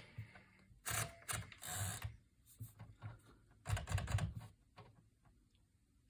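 A 1954 Smith-Corona Super manual typewriter making a few scattered clicks and knocks, with a short scraping rasp about two seconds in and a denser cluster of clatter about four seconds in.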